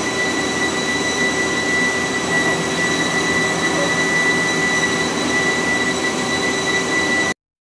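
Steady running noise of CNC machine-shop machinery: a constant hum with a high, unwavering whine. It cuts off suddenly near the end.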